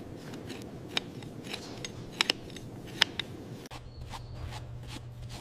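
Hoof knife scraping dirt and small stones out of a cow's cloven hoof: a soft scraping with a few sharp clicks, two of them close together a little after two seconds. A steady low hum comes in about three and a half seconds in.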